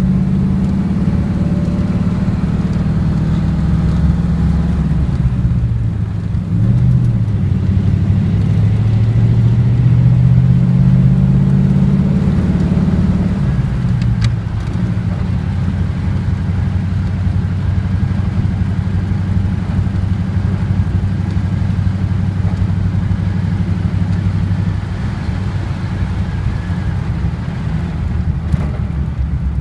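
Engine of a 1939 antique car running while driving. Its pitch falls, climbs and drops again through the first half as the car changes speed, then holds steady.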